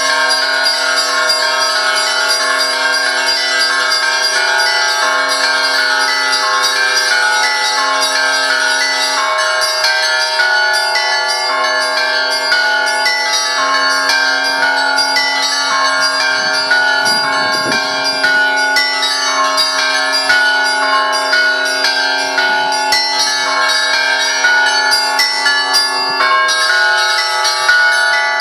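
Russian Orthodox church bells ringing in a continuous peal. Many bells sound together: the deeper bells hum steadily while smaller bells are struck rapidly and repeatedly over them.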